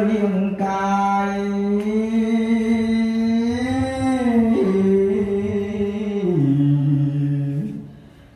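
A single voice chanting a Buddhist funeral chant in long held notes that slide and step down in pitch, the phrase fading out near the end.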